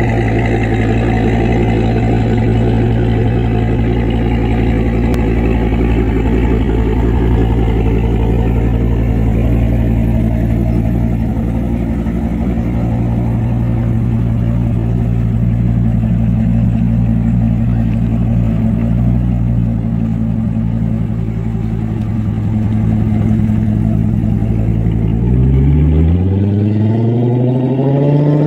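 Chevrolet Corvette Z06 V8 running at low speed with a steady, deep exhaust note, then accelerating away over the last few seconds, its pitch rising.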